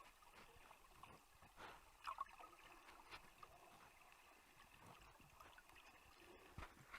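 Faint, muffled water sounds of snorkeling, with a few soft gurgles.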